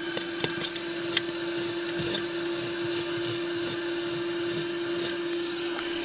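Portable 12-volt car vacuum cleaner running steadily with a constant motor whine. A few sharp ticks come in the first second or so as it picks up bits.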